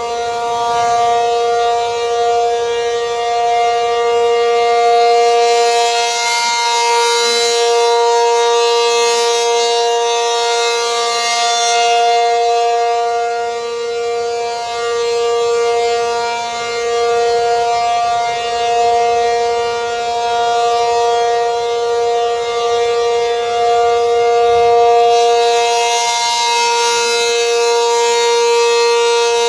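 ACA Penetrator 50 outdoor warning siren sounding a steady-pitch alert tone, swelling and fading slowly in loudness: the steady alert signal for a tornado warning.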